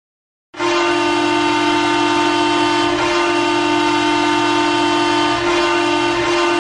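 Ice hockey arena goal horn blasting one long, steady, low note, starting abruptly about half a second in and held without a break.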